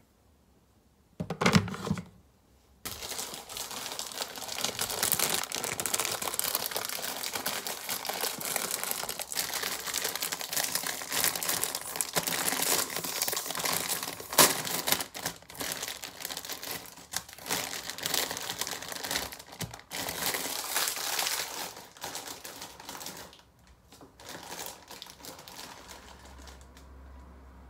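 Plastic instant-noodle packet crinkling steadily as it is handled and opened, dying down near the end. A short knock about a second in.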